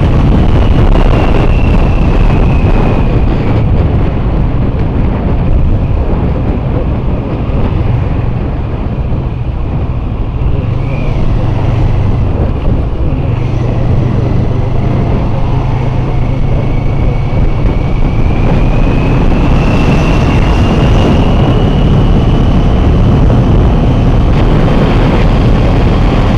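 Heavy wind buffeting on the microphone while a CFMoto 400NK motorcycle is ridden, over the bike's engine running. A thin high whine drops in pitch early on and climbs again in the later part as the riding speed changes.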